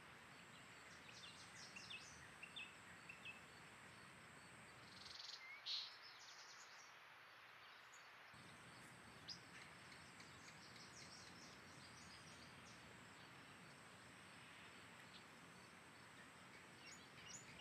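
Near silence: faint outdoor ambience with scattered short bird chirps and a steady high insect-like trill.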